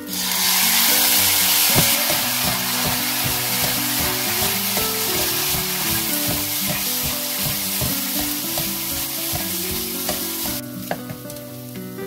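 Soy-based sauce poured into a hot pan of small dried anchovies and garlic starts sizzling loudly at once, while a wooden spatula stirs and knocks against the pan. The sizzle dies down sharply near the end as the liquid cooks off.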